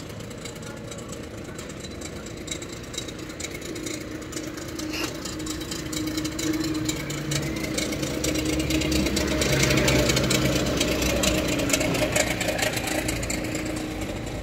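A motor vehicle's engine running at low speed close by. It grows louder to a peak about two-thirds of the way through, then fades as the vehicle passes.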